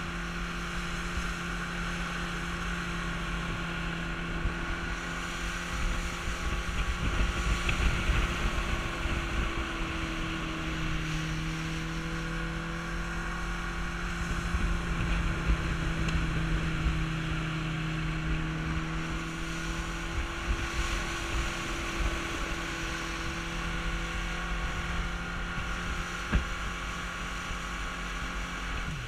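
Small motorboat's engine running steadily under way, a constant hum with slight changes in pitch, with wind buffeting the microphone.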